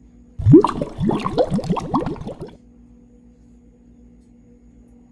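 Water bubbling: a quick run of short, rising blips for about two seconds, starting about half a second in, followed by a faint steady hum.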